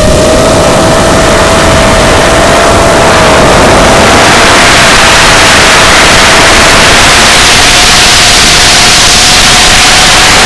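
FPV quadcopter's motors whining at one steady pitch that creeps slowly upward, under a loud rush of wind and propeller noise that swells about four seconds in.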